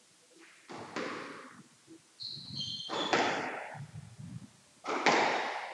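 Squash rally: the ball is struck and hits the walls three times, about two seconds apart, each hit ringing in the court. A short squeak, typical of a court shoe on the floor, comes just before the second hit.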